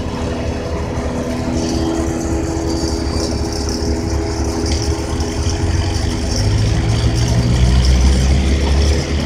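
Truck engine running steadily at idle, with a deeper low hum swelling in about six and a half seconds in.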